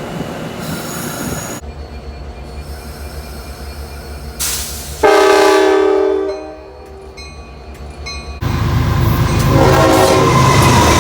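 Train horns in short clips cut one after another. A loud horn blast starts suddenly about five seconds in and lasts over a second, and near the end another horn sounds over the low rumble of a train.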